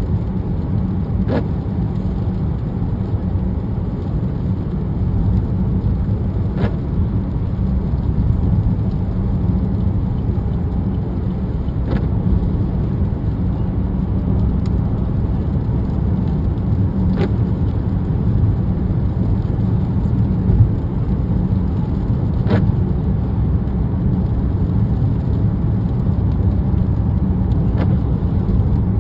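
Steady road and tyre rumble heard from inside a moving car's cabin on a wet highway, with the windshield wipers on intermittent making a brief sweep about every five seconds.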